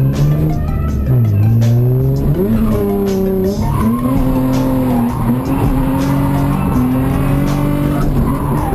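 A car engine revving up and down in repeated rising and falling sweeps, with tyre squeal, as in drifting. Background music with a steady beat plays underneath.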